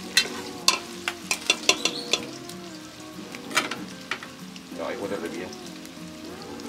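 Chorizo, bacon and chopped onion sizzling in a metal pot while a spoon stirs them, clicking and scraping against the pot. The spoon clicks come thick and fast for the first two seconds or so, then thin out.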